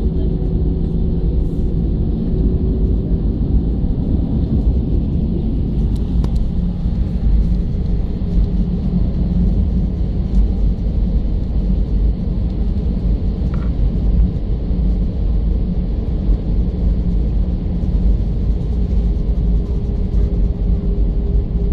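Steady low rumble in the cabin of an Air Arabia Airbus A320 rolling on the ground, from the jet engines and wheels on the tarmac, with a steady hum running through it.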